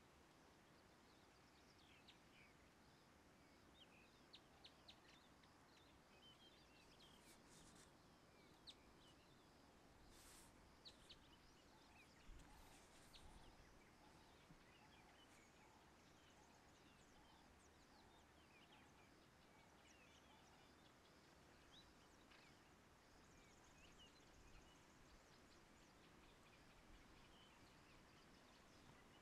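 Faint natural ambience: scattered high chirps of small birds in the background, a few soft clicks, and a short run of soft repeated lower notes in the middle.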